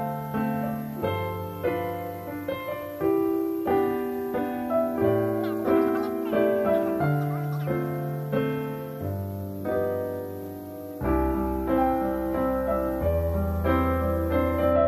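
Background piano music: a melody of struck notes over held bass notes, with a deeper bass note coming in about eleven seconds in.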